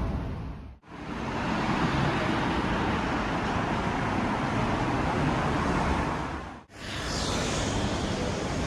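Steady traffic and vehicle noise of a busy street, cut twice with a quick fade out and back in, about a second in and near the end.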